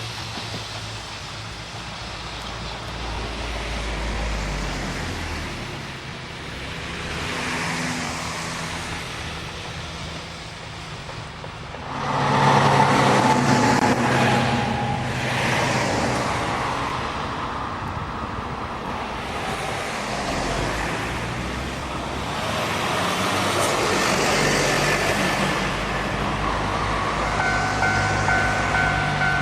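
Traffic noise beside a railway line, with road vehicles and an electric train; it gets clearly louder about twelve seconds in.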